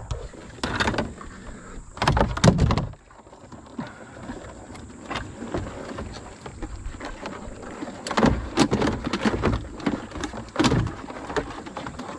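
Knocks and clatter of crabbing gear being handled in a small fibreglass dinghy: the scoop net's aluminium handle and a plastic bucket bumping against the hull. The knocks come in bursts, loudest about two seconds in and again from about eight seconds in.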